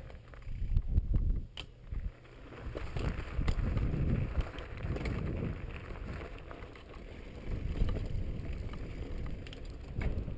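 Mountain bike rolling over gravel and onto a dirt trail: tyre noise and the bike's knocks over the ground, with wind buffeting the microphone. A couple of sharp knocks come in the first two seconds.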